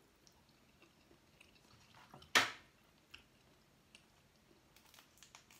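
Close eating sounds of seafood being chewed and handled by hand: scattered light clicks of shell, with one loud, short wet mouth sound about two and a half seconds in.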